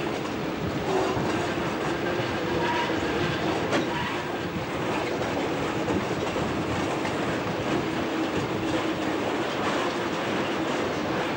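Brill Model 75 railcar running along the line, heard from an open side window: steady rolling noise with a low drone, and wheels clicking now and then over rail joints.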